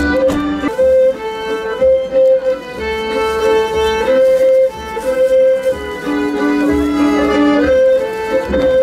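Folk band playing an instrumental passage: a fiddle carries the tune in long held notes over a low, recurring bass beat.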